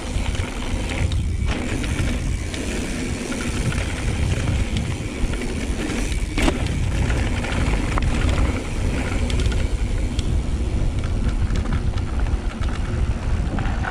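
Mountain bike descending a rough downhill trail: tyres rolling over dirt and rocks under a heavy low rumble, with one sharp knock about six and a half seconds in.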